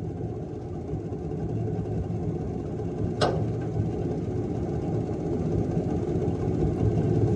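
Boat's outboard motor idling steadily with a low, even rumble. A single sharp click about three seconds in.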